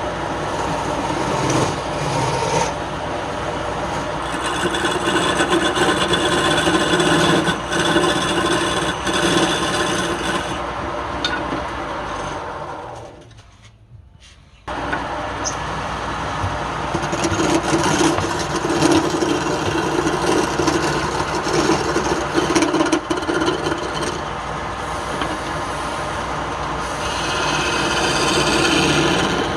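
Wood lathe running with a tool or abrasive rubbing and scraping against the spinning wood. About halfway through the sound fades away, then comes back suddenly.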